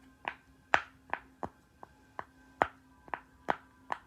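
Silicone pop-it fidget toy having its bubbles pressed one after another: about ten sharp pops, two or three a second, some much louder than others.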